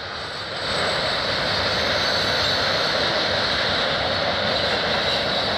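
CN freight train rolling past: a steady rumble of steel wheels on rail, growing louder about a second in, with a faint high steady ring above it.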